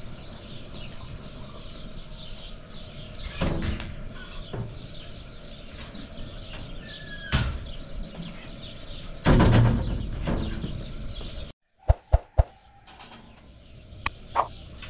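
Rural outdoor ambience with a steady hiss, a short falling bird call about seven seconds in, and a few sharp knocks.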